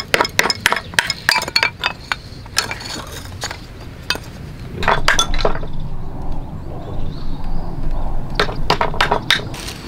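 Hatchet being tapped down through small blocks of dry wood, splitting them into thin kindling: a quick run of sharp wooden knocks and cracks that thins out, with another cluster about five seconds in and a few more near the end.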